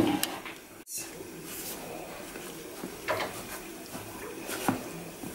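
Wooden spoon stirring maize meal into cold water in an enamel bowl to make a paste for porridge: soft scraping with a few light knocks against the bowl. A louder knock comes right at the start.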